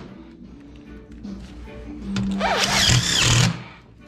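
Background music, with a cordless DeWalt driver running in one burst of about a second and a half a little past the middle, driving a screw into a sheet-metal round duct fitting. Its whine rises and then falls as the trigger is squeezed and let go.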